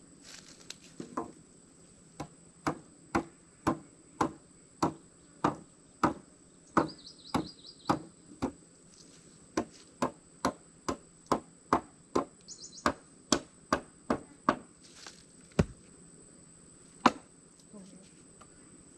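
Knife blade chopping into a dry, light log: a steady run of sharp wooden knocks, about two a second, then a few slower, harder strikes near the end as the wood is broken through.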